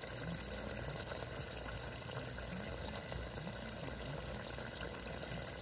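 A steady stream of water pouring from a leak in a home-built, stick-welded steel gas tank and splashing into a muddy puddle: the welded seams are not watertight.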